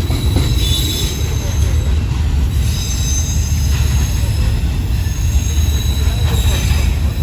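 Loaded freight train rolling past: a heavy low rumble with high-pitched wheel squeal that fades and returns.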